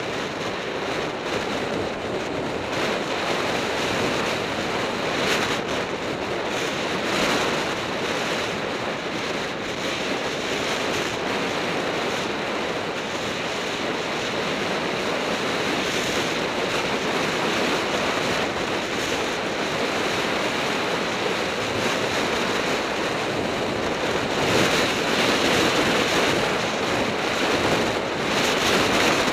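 Wind rushing over a camera microphone moving at speed on a fast road descent, a steady, noisy rush with no engine tone, swelling somewhat louder near the end.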